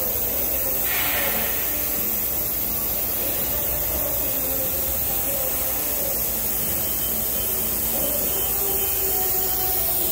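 Steady machine hiss with faint humming tones from an Elumatec SBZ 150 CNC aluminium profile machining centre running; no separate cutting strokes or knocks stand out.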